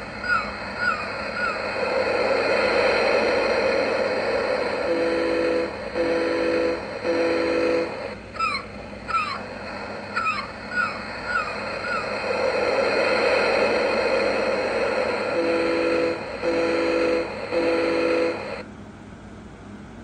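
Lighthouse figurine's built-in sound chip playing recorded seagull cries and ocean surf, then three short foghorn blasts. The gulls-surf-foghorn sequence plays twice, then cuts off near the end.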